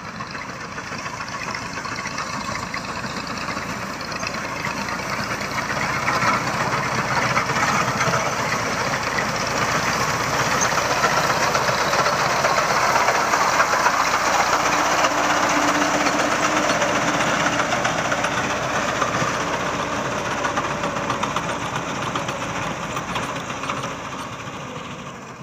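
Diesel tractor with a front-mounted wheat reaper running as it cuts. It grows louder as it draws close around the middle and fades as it moves away.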